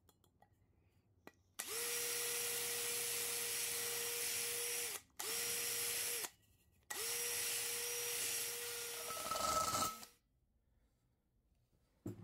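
Cordless drill with a spade bit drilling into the metal canister of an old car filter: three runs of a steady motor whine with short stops between, the cutting sound changing and getting louder just before the last run stops. A short knock near the end.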